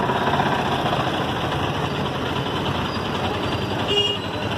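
Auto-rickshaw engine running close by amid steady street traffic noise, with a short high tone about four seconds in.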